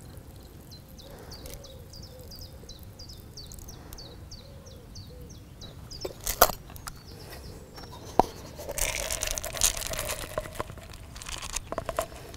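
A small bird singing a run of short falling notes, about three a second. Then a few sharp knocks from a metal tin, and near the end a rattling rush as hemp seed is tipped out of the tin into a measuring cup.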